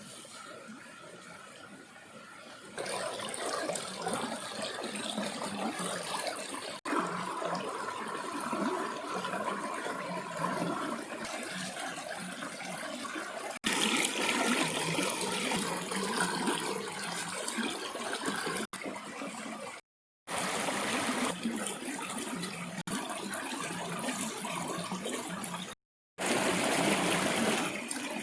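Water running and splashing in a string of short takes joined by abrupt cuts, with two brief drops to silence.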